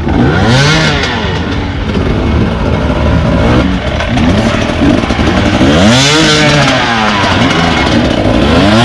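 Enduro dirt bike engines revving, the pitch surging up and falling back again and again as the throttle is worked.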